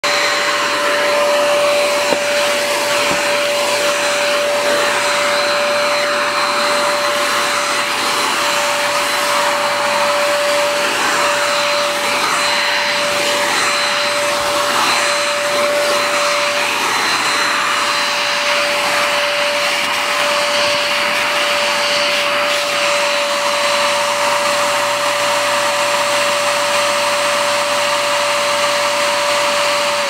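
Carewin Ace handheld bedding vacuum cleaner running steadily: a constant motor whine over a dense rush of air as it is worked over a quilt.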